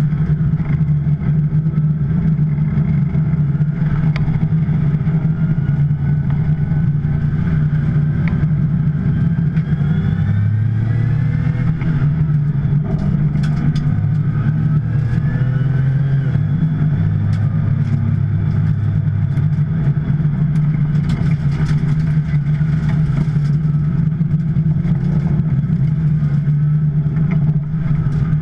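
2010 Porsche 911 Turbo's twin-turbo flat-six running steadily under light, even load, with faint rising whines higher up.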